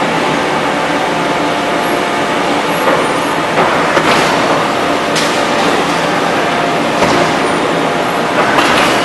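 Steady mechanical running noise of a hydraulic forging press and forging manipulator at work, with a faint hum, broken by a few short, sharp noises.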